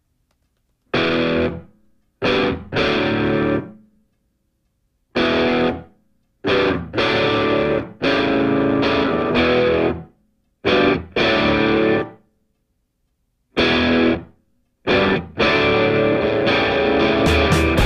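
Music: distorted electric guitar playing stop-start chords, each burst lasting a second or two, with short silences between them.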